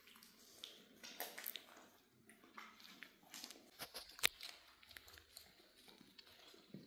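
Miniature dachshund puppies playing: a puppy nibbling at a hand, then two puppies wrestling, giving quiet, irregular scuffling with small clicks and taps. The sharpest click comes about four seconds in.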